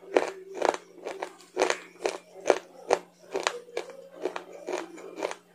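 Close-miked chewing of crunchy food: a steady run of sharp crunches, about two or three a second.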